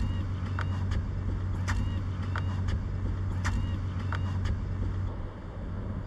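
Footsteps on brick pavers at a steady walking pace, a sharp step about once a second, over a steady low rumble.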